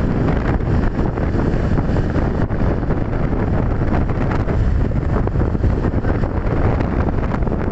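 Strong gusting storm wind buffeting the microphone: a loud, steady, fluttering rumble.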